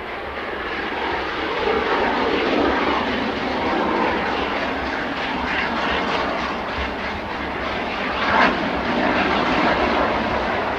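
A4 Pacific steam locomotive 60009 working a passenger train, heard from afar as a steady rushing exhaust and running noise. It grows louder in the first couple of seconds, with a short louder burst about eight seconds in.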